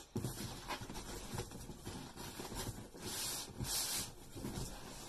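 Cardboard shipping box being handled and its taped flap pulled open: soft scraping and rubbing of cardboard with small clicks, and two brief hissing scrapes about three and four seconds in.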